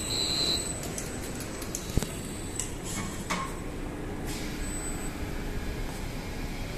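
Automatic laboratory dispensing machine running: its motor-driven gantry and dispensing head whir and slide, with a short high whine at the start, scattered clicks, and one sharp click about two seconds in.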